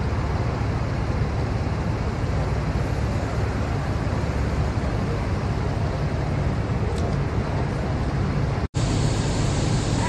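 Steady low rumble of vehicle engines and traffic on a city street. It drops out for an instant near the end.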